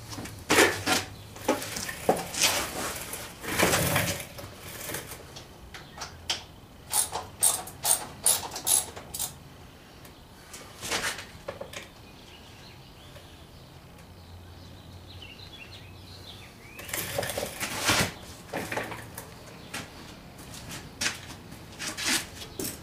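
Metal hand tools clinking and clattering as they are handled, in irregular bursts of knocks and clicks with a quiet stretch in the middle.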